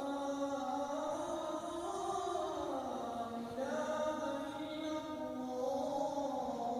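Slow, chant-like music of long held tones that slide from one pitch to the next every second or two.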